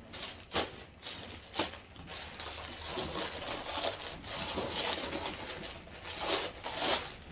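Plastic mailer bag and packaging rustling and crinkling as a parcel is torn open and handled. There are a few sharp crackles in the first two seconds and louder rustling bursts near the end.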